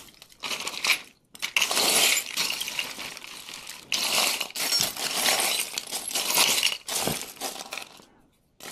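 Loose costume jewelry and beads clinking and rattling together as hands rummage through a pile, in several long stretches of dense small clinks with brief pauses between them, dying away near the end.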